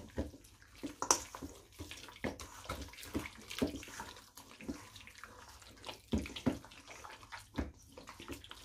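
Raw meat chunks being squished and turned by hand in tomato sauce and spices in a stainless steel bowl: irregular wet squelches, some sharper than others, as the meat is worked into its marinade.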